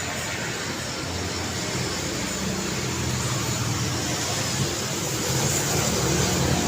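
Road traffic: car and motorbike engines and tyre noise passing steadily, growing louder toward the end as vehicles come closer.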